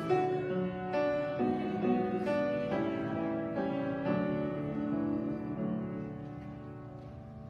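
Grand piano playing a slow passage of chords, the last chord ringing and dying away near the end.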